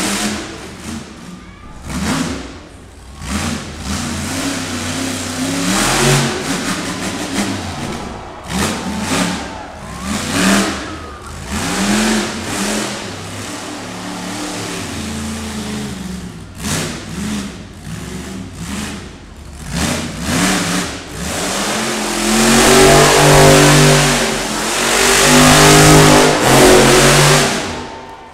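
Monster truck engine revving hard in repeated bursts, its pitch climbing and dropping over and over as the truck is driven through its freestyle. From about 22 seconds in it holds at high revs through spinning donuts, the loudest part, before dropping off near the end.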